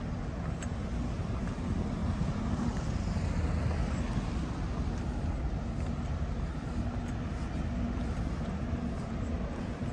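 Steady road traffic rumble, swelling briefly about three seconds in.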